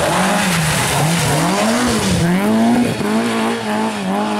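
Ford Escort rally car engine revving hard through a bend, its pitch climbing and dropping about four times with the throttle and gear changes, then holding steady near the end.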